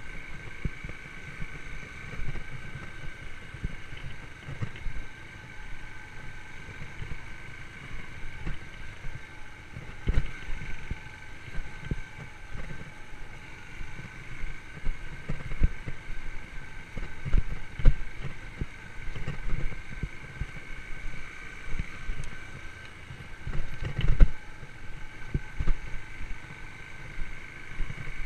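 Yamaha YBR125's single-cylinder four-stroke engine running at a steady speed as the motorcycle rides a forest track, with frequent irregular low knocks and bumps from the rough ground and wind on the microphone.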